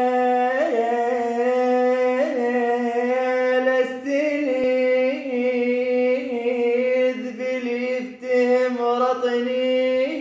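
A man singing with no accompaniment, drawing out one long held note with small ornamental turns in pitch every second or so, and a brief break about eight seconds in.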